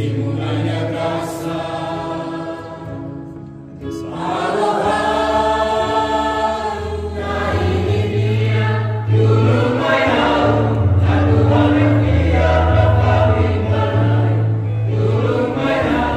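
Music with a choir singing, held bass notes changing every second or so under the voices.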